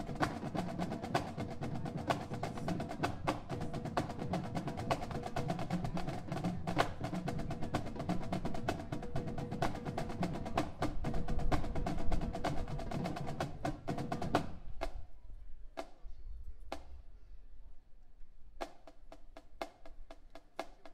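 High school marching band playing: brass and saxophones over a steady drum-line beat. About fourteen seconds in the horns cut off, leaving only scattered drum hits, a short pause, then the drums again near the end.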